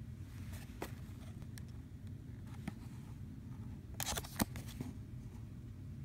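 Hands handling and turning a cardboard retail box with a plastic window: scattered light clicks and crinkles, with a short cluster of crinkling and a sharp click about four seconds in, over a steady low hum.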